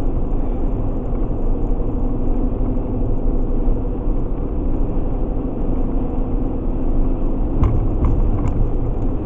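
Steady road and engine noise inside a car's cabin while driving at highway speed, with a constant low hum through it. Two light knocks come near the end.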